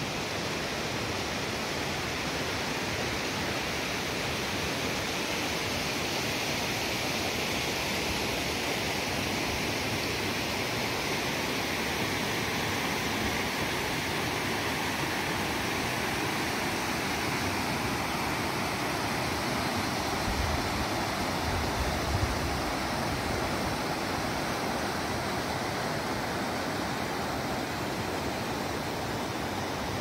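Steady rush of flowing river water, an even hiss-like roar with no breaks. A brief low rumble comes about two-thirds of the way in.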